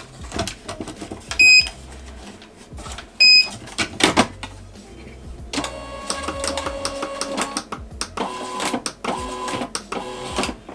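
Thermal label printer beeping twice, then a click, then its feed motor whining as it pulls the newly loaded label roll through in one longer run and several short ones near the end: the printer feeding itself the new labels after the lid is closed.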